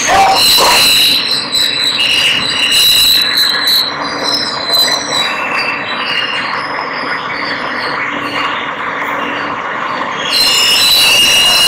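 Inside a moving R160 New York City subway car: the steady running noise of the train with high wheel squeal that comes and goes, growing louder again about ten seconds in.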